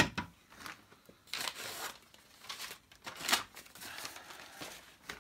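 Paper and plastic packaging rustling and crinkling in several short bursts as it is handled, after a sharp knock at the very start.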